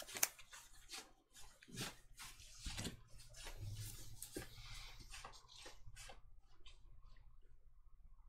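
Sleeved playing cards being handled and set down on a playmat: a scatter of faint soft taps and clicks, with a faint rustle about four seconds in, over a low steady hum.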